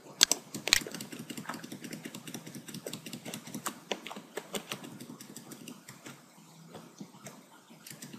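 Irregular clicking of a computer mouse: two sharper clicks in the first second, then many light ticks, several a second. The mouse is not responding.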